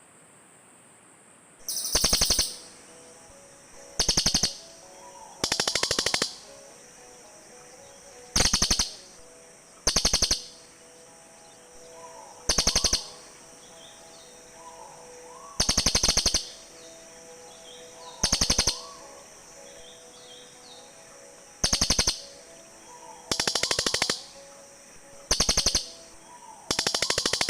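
Crested jays (cililin) giving loud, dry rattling calls, about a dozen short rattles spaced irregularly, calling back and forth.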